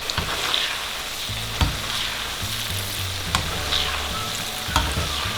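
Chillies frying in hot oil on medium-high heat: a steady sizzle, with three sharp clicks of a utensil against the pan.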